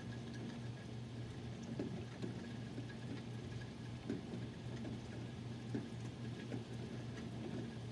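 Steady rain during a thunderstorm, with scattered drops tapping close by over a low steady hum.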